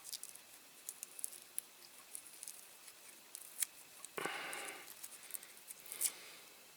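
Small clicks and taps of pliers and the model's small metal parts being handled at a workbench, with a short rasp about four seconds in, like masking tape being pulled off a die-cast axle.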